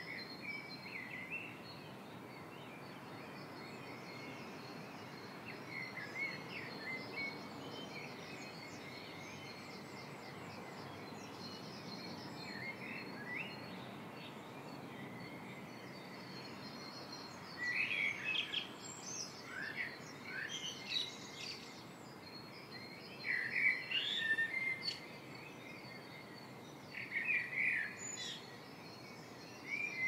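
Small birds chirping in short, scattered phrases over a steady background hiss, sparse at first and busier and louder in the second half.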